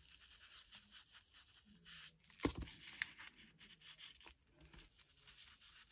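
Ink blending tool's foam pad rubbed in short, repeated strokes over the edges of paper, a faint scratchy brushing. One sharp knock comes about two and a half seconds in.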